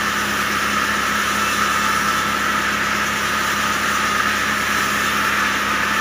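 Sawmill band saw driven by a stationary diesel engine, running steadily as a long log is fed through the blade.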